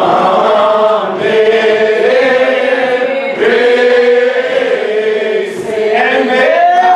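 Slow, unaccompanied Primitive Baptist hymn singing, with long held notes that bend up and down. There is a brief break about halfway through and a rising note near the end.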